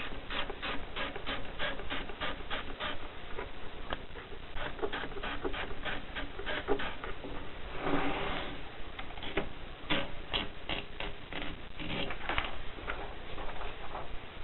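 Keys of a Mercedes Prima typewriter being struck in quick runs of sharp clacks, several a second, with a longer rattle about eight seconds in.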